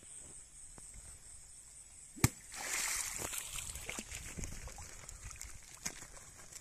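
A sharp click a little over two seconds in, then water splashing and sloshing as hands work in shallow water, with small knocks and drips through it.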